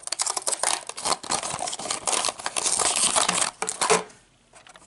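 Crackly tearing and crinkling as the foil seal of a Littlest Pet Shop Hungry Pets toy can is peeled and pulled away by hand. It stops about four seconds in.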